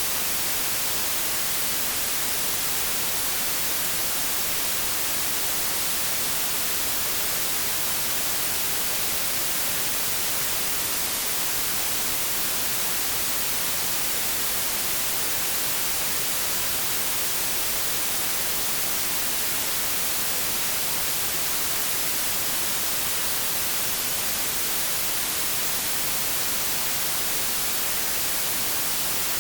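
White noise: a steady, even hiss with no change, brightest in the treble.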